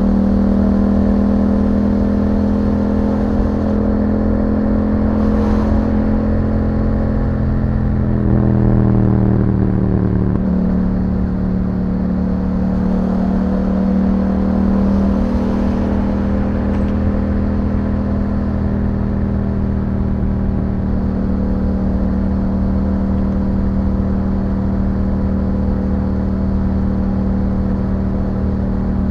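Yamaha MT-07's parallel-twin engine running through an Akrapovic exhaust while riding at a fairly steady engine speed. The engine note shifts and settles again about eight to ten seconds in.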